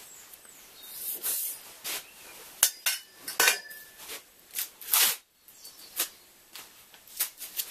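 Handling noises from small metal parts and tools: irregular clinks, knocks and short scrapes, the loudest a few seconds in.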